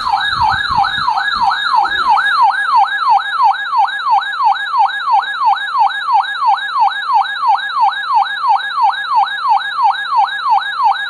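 Electronic siren in a fast yelp: a wail that sweeps up and down about three times a second at an even pace.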